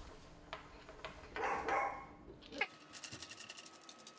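A dog whining in the room, with a short pitched yelp about two and a half seconds in. Quick light clicks of small parts and a screwdriver being handled run through the second half.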